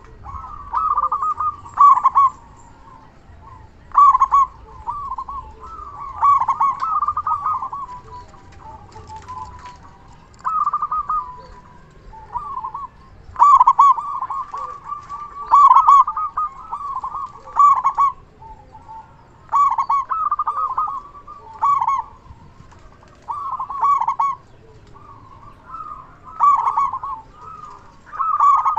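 Zebra dove (perkutut) cooing over and over in its loud, full voice: rapid, rolling coo phrases about a second long, one roughly every two seconds.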